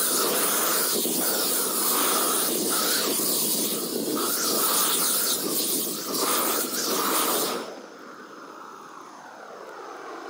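Propane weed-burning torch (IdealGas 171725) burning with a steady roaring hiss, dipping briefly now and then. About three quarters of the way through it drops sharply to a much fainter hiss.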